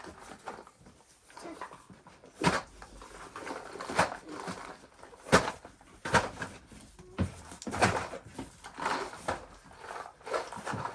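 Irregular knocks and clatter, roughly one a second: boxes of self-tapping screws being handled and set down on shelving in a small room.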